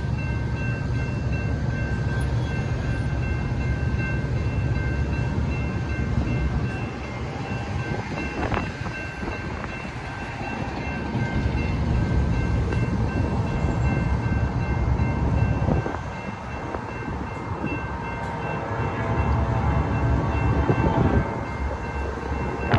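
Railroad grade-crossing warning bell ringing steadily as a high, even tone, over low wind rumble on the microphone. A freight train approaches in the distance.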